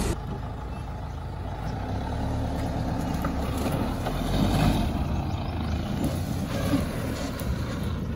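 Mahindra Thar 4x4 engine running steadily at low revs while crawling up a rutted dirt trail, with a few light knocks.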